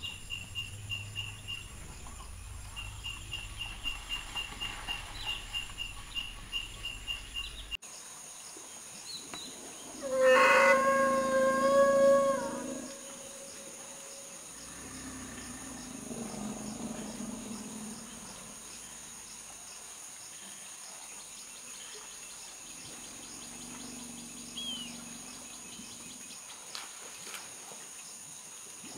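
Insects chirping rhythmically, about four chirps a second. About ten seconds in, a loud elephant call of about two and a half seconds, a steady high trumpet over a lower growl. A few seconds later comes a quieter, lower call.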